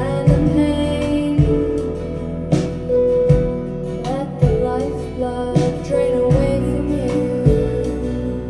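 A slow song played through MartinLogan Neolith electrostatic loudspeakers: held notes over a bass line that sounds a new note every second or so.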